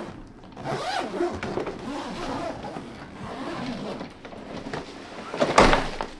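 Suitcase zipper being pulled open, with rasping zip strokes and a short, louder zip near the end.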